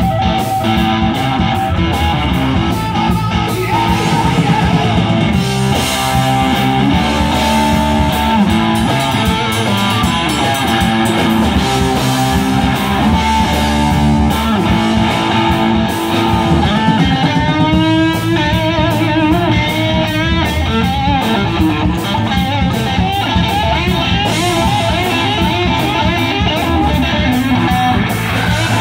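Live rock band playing an instrumental: electric guitars and drums, loud and steady. A lead line bends and wavers over it about two-thirds of the way through.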